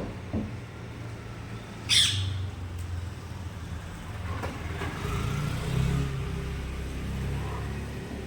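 A rose-ringed parakeet gives one short, high squawk about two seconds in, with a few fainter calls later, over a steady low background rumble.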